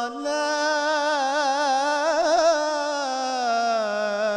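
A male munshid singing one long, unbroken melismatic phrase of an Islamic religious song (ibtihal). It rises slightly at the start, wavers in quick ornamental turns around the middle, and glides down lower near the end.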